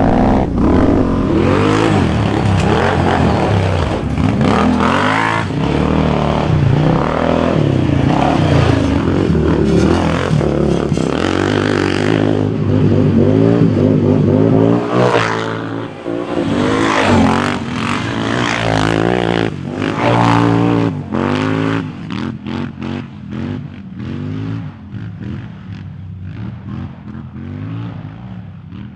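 Sport quad engine revving hard, its pitch climbing and dropping again and again as the throttle is worked and gears change, with clatter and scraping from dirt and chassis. Over the last third it turns to shorter, quieter throttle blips.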